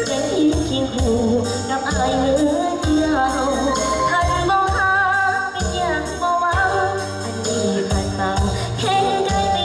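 A woman singing live through a microphone and PA over amplified backing music with a steady beat.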